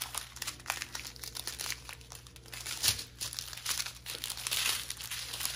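Small plastic bags of diamond painting drills crinkling as they are handled and laid out in a row, a run of irregular light crackles and rustles.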